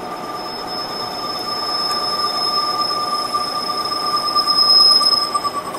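Lathe parting tool squealing as it cuts a spacer ring off metal tube stock. The squeal is a steady high tone with a thinner whistle above it over a hiss of cutting. It grows louder toward the end and stops shortly before the end, as the cut goes through.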